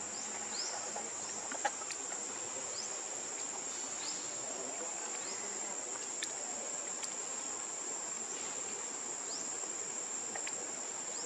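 Steady high-pitched drone of insects, with a few short rising chirps scattered over it and a single brief tap just under two seconds in.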